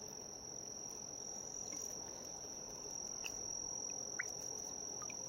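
Insects trilling in a steady, unbroken high-pitched chorus, with a few faint short chirps scattered through it.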